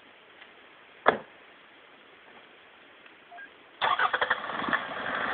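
A single sharp knock about a second in, then, near the end, a Toyota Land Cruiser 120's engine cranks with a quick run of clicks and catches, running on. It is being restarted after stalling on a leafy slope, its exhaust thought to be packed with leaves.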